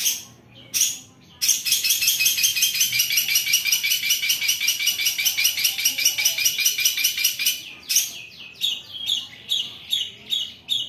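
Long-tailed shrike (cendet) singing. A couple of sharp calls lead into a long, rapid, harsh rasping chatter (the 'besetan'), about ten notes a second. About eight seconds in it breaks into spaced, clearer notes about three a second.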